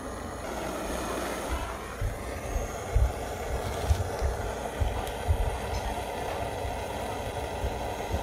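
Bison Airlighter 420 running, a butane torch with a built-in blower fan: a steady rushing blast of the fan-driven flame, with irregular low thumps.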